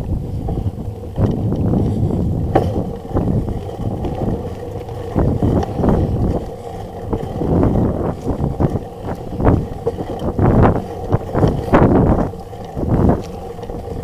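Mountain bike rolling fast down a dirt trail: wind rumbling on the microphone, with repeated knocks and rattles from the bike as it goes over bumps, thickest in the second half.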